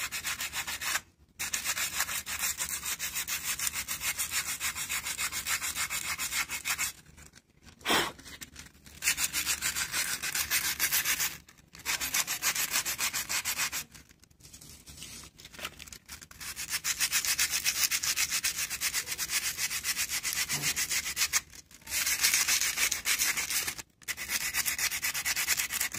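Sandpaper rubbed rapidly back and forth by hand over the linings of motorcycle drum-brake shoes: a rasping hiss in runs of a few seconds with short pauses between them. The sanding takes the glazed, shiny surface off the worn linings and bares fresh lining so the brakes grip again.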